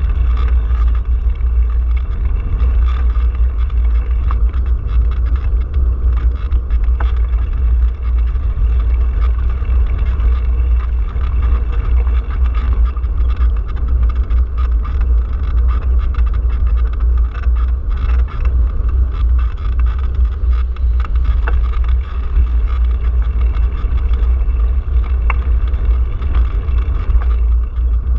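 Steady low rumble of wind buffeting and road vibration on a handlebar-mounted camera on a moving bicycle, with a few faint clicks.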